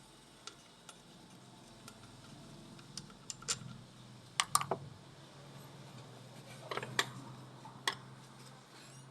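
Irregular light clicks and clinks of hand tools and metal parts being handled during EGR work, in small clusters, over a faint steady low hum.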